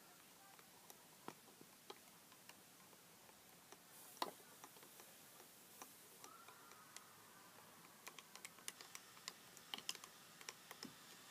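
Faint, irregular clicks and taps of a small spoon against the sides of a mug as Nesquik powder is stirred into milk. The taps come more often in the second half.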